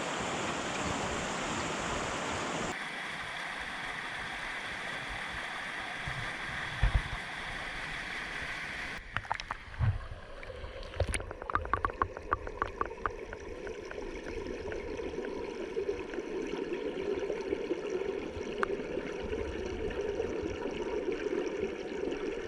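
Steady rush of a creek and waterfall flowing over rocks, its tone shifting abruptly twice. A run of short sharp knocks or splashes comes about ten to thirteen seconds in.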